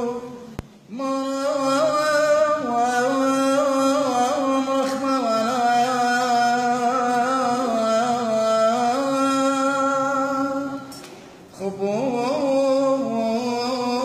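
A solo male voice chanting an Assyrian Church of the East madrasha hymn in Aramaic, holding long notes with wavering ornamental turns. The singing breaks off briefly for breath just after the start and again about eleven seconds in.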